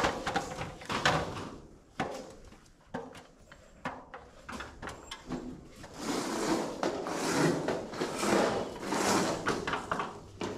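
Carpentry handling noise from lumber and a stepladder: a few sharp knocks in the first couple of seconds and scattered clicks, then from about halfway a few seconds of rustling and scraping.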